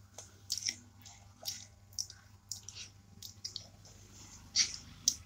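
Small mouth noises from a young girl pausing between sentences: soft wet lip smacks, clicks and breaths, about nine short ones scattered through, the strongest a little after four and a half seconds. A faint steady hum lies underneath.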